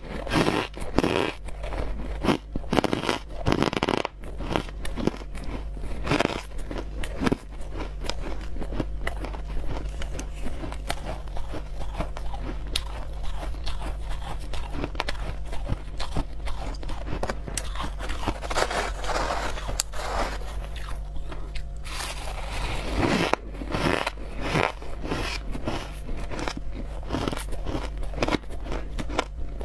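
Crushed ice being bitten and chewed in the mouth: a long run of crisp crunching and crackling, thickest in the first several seconds and again about two-thirds of the way through, over a steady low background hum.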